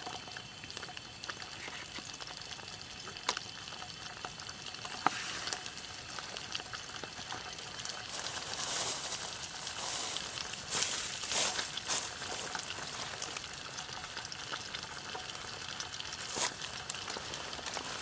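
Eel frying in hot oil: a steady sizzle with sharp pops and crackles. The popping is busiest about eight to twelve seconds in.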